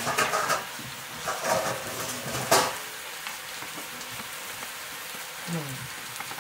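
Chopped vegetables and greens frying in a wok over a wood fire: a steady sizzle, with a few sharp clicks in the first three seconds.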